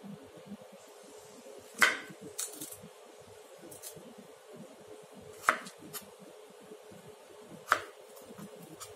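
Kitchen knife cutting broccoli florets on a wooden cutting board: a few sharp knocks of the blade striking the board, three of them louder, spread out unevenly, with fainter clicks between.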